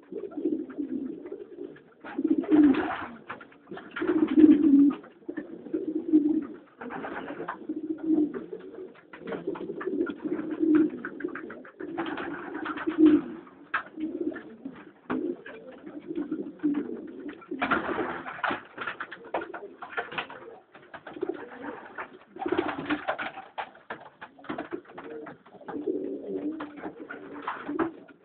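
Domestic pigeon cocks cooing repeatedly in a loft as the birds pair up, several calling over one another, broken every few seconds by short louder noisy bursts.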